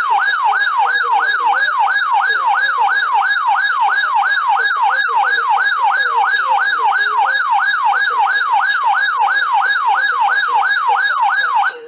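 Electronic alert siren in a fast yelp pattern: a loud, repeating pitch sweep, about three a second, that cuts off abruptly near the end.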